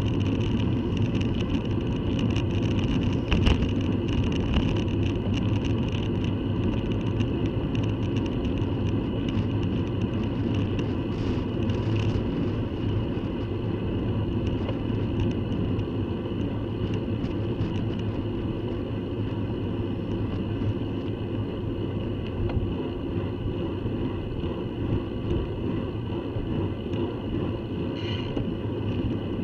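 Steady wind rush and road noise on the microphone of a bicycle-mounted camera riding up a road, with one sharp knock about three and a half seconds in.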